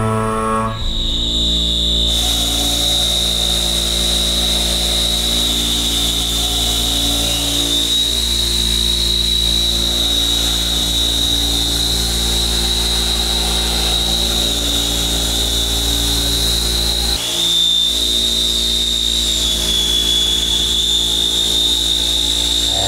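CNC milling machine's cutter cutting hard metal: a steady, high-pitched whine over a hiss, with a low hum beneath. It starts about a second in and briefly dips and shifts pitch about three-quarters of the way through.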